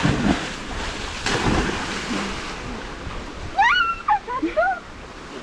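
Water splashing and churning as a person plunges into a spring-fed pool, with another surge of splashing about a second in. About three and a half seconds in, a few short gliding whoops from a voice.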